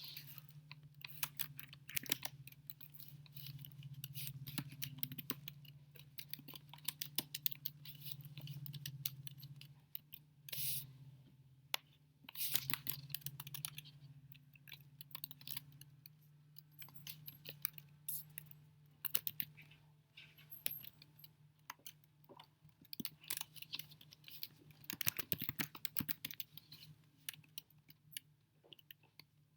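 Many quick, irregular clicks and taps, coming in clusters, over a steady low hum.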